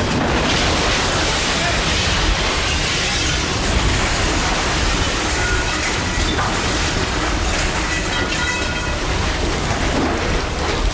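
The roar of a violent tornado passing close by: a loud, steady rush of wind and driving rain. It cuts off at the very end.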